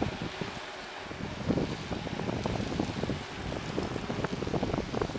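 Wind buffeting the microphone in uneven gusts, with a group of mountain bikes riding past close by.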